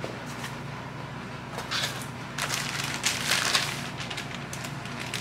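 Unboxing a cardboard shipping box: plastic packaging rustling and crinkling as wrapped items are pulled out, in a short burst then a longer, louder one from about one and a half to four seconds in.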